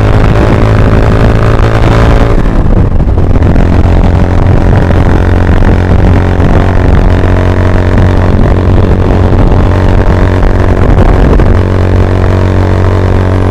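Honda Grom's 125 cc single-cylinder engine running at a steady speed under way. Its note softens about two seconds in, then holds steady.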